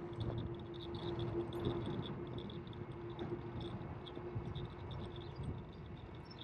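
Steady low rumble of a bicycle rolling along a paved path, with a faint, quick high ticking and a steady hum that stops about five seconds in.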